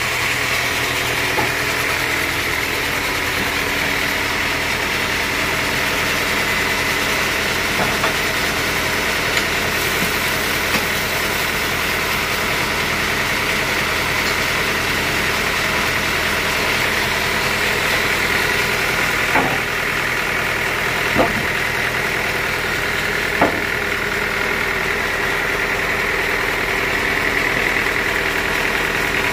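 Band sawmill running steadily, its motor and blade making a constant hum with a whine on top. A few short sharp knocks come in the second half.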